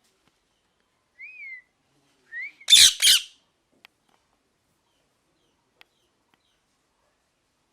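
Pet parrot calling: a short whistled note that rises and falls, a rising chirp, then two loud, harsh squawks in quick succession.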